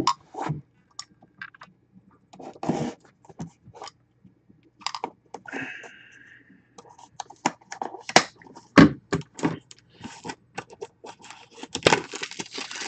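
A sealed trading-card box and its plastic wrapping being handled on a table: scattered clicks and scrapes of cardboard, with a brief hiss about five seconds in and plastic crinkling more densely near the end.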